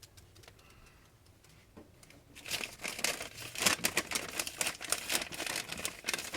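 Paper crinkling and rustling as it is handled, in dense irregular bursts starting about two and a half seconds in, after a quiet start.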